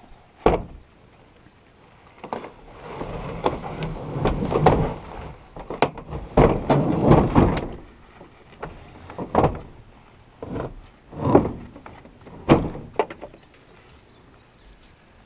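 A series of sharp knocks and thuds, about half a dozen spread out, with stretches of rustling and scraping between them.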